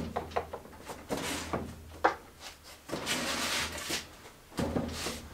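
Plywood sled pushed and pulled across a bandsaw table: wood sliding and rubbing in several strokes, with a few light knocks.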